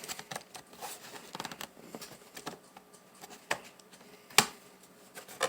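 Scattered small clicks and short scrapes of a laptop being taken apart by hand, its plastic case and small screws being worked loose and handled, with one sharper click about four and a half seconds in.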